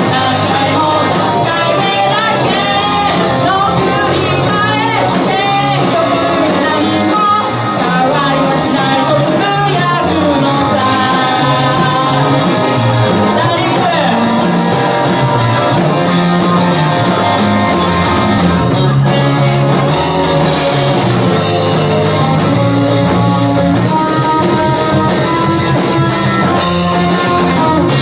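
Live rock band playing a song: electric guitar and drum kit with a singer's voice over them.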